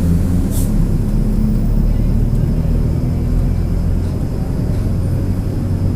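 Mercedes-Benz OF-1722M bus under way, heard from on board: the diesel engine and drivetrain make a steady low drone, with the differential growling. A short hiss comes about half a second in.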